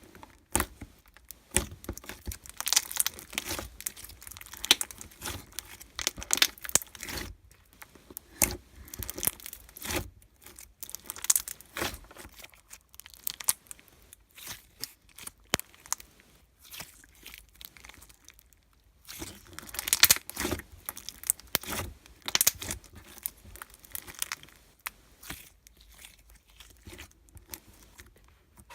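Irregular crinkling and tearing handling noises in many short bursts, like paper or plastic being worked by hand, with a couple of brief pauses.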